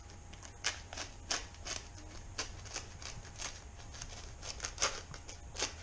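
X-Acto knife cutting and scraping a shallow recess into a kayak: a run of short, sharp, irregularly spaced cuts and clicks.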